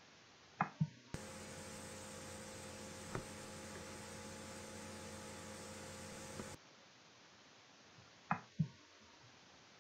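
Two sharp clicks close together, typical of a computer mouse click. Then a steady electrical mains hum with hiss starts abruptly, runs about five seconds and cuts off suddenly. Another pair of mouse clicks comes near the end.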